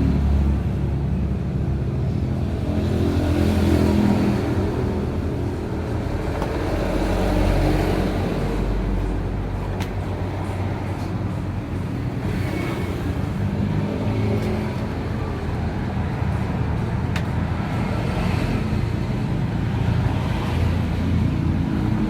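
Motor vehicle traffic: engines running and passing in a steady low drone that swells and fades every few seconds, with a few faint clicks.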